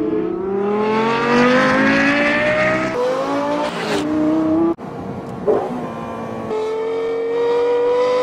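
Lexus LFA's 4.8-litre V10 accelerating hard, its pitch climbing through the gears with an upshift about three seconds in. The sound breaks off abruptly near five seconds, then pulls up again and keeps climbing slowly.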